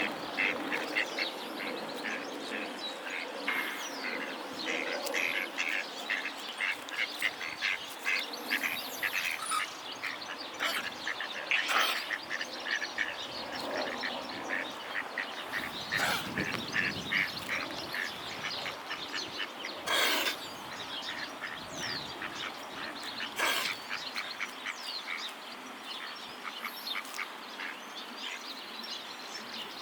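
Waterfowl calling in a fast, dense chatter of short calls, with a few louder, sharp sounds in the middle stretch.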